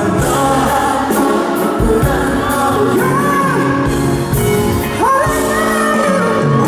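A male singer sings a pop song live into a microphone over band accompaniment, with held notes and gliding phrases over a steady low beat. It comes over an arena's PA system.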